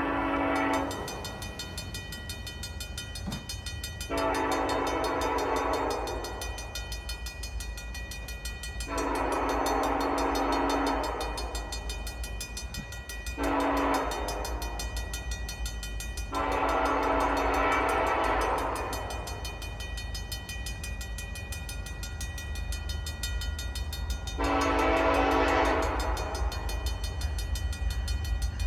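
Nathan K5LLA five-chime air horn on CN SD70M-2 locomotive 8942, approaching from a distance and sounding the grade-crossing signal. The tail of one blast is followed by long, long, short and a drawn-out long blast, then another long blast begins near the end. A steady low rumble runs underneath.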